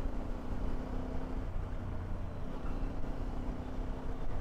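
Hero XPulse 210 motorcycle engine running steadily under way, a low even hum with road and wind noise.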